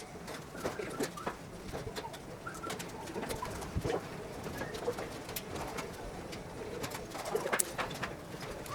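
Pigeons or doves cooing repeatedly, with scattered sharp clicks and light taps throughout, fitting cleco fasteners being set into the bulkheads and aluminium skin.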